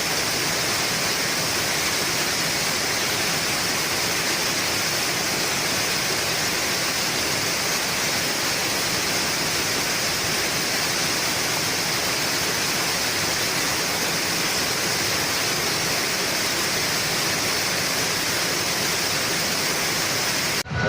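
Waterfall rushing: a steady, even roar of falling water with no break. It cuts off abruptly just before the end.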